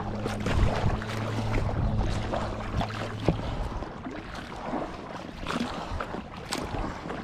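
Kayak paddle strokes: the blade splashing in and out of the water with dripping between strokes. A steady low hum runs underneath and stops about three and a half seconds in.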